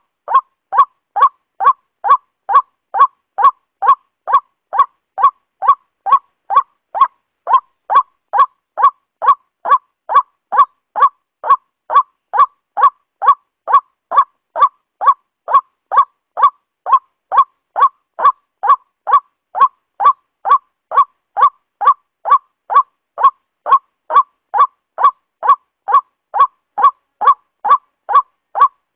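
Waterhen calling: a short honking note repeated at an even, unbroken pace of nearly two a second, as on a looped call recording.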